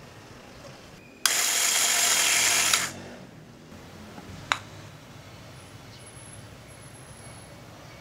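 Electric flat burr coffee grinder running for about a second and a half, grinding coffee beans with a steady whirring grind that starts and stops abruptly. A single sharp click follows a couple of seconds later.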